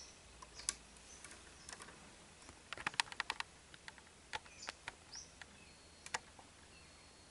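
Faint scattered light clicks and taps of small plastic model-engine kit parts being handled, with a quick run of clicks about three seconds in.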